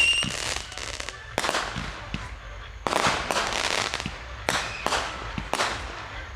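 Aerial fireworks exploding: a string of sharp bangs about a second apart, each trailing off briefly.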